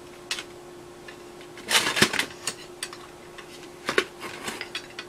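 Clicks and knocks of hard objects being handled and set down, loudest in a cluster about two seconds in and again near four seconds, over a steady hum.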